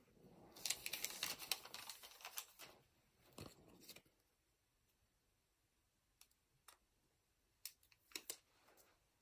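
Crinkling and rustling of plastic packaging being handled, with many small clicks, for about the first four seconds. After that, near silence with a few faint ticks.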